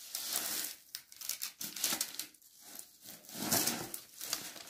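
Irregular rustling and crinkling from handling, coming in a run of short bursts with brief gaps between them.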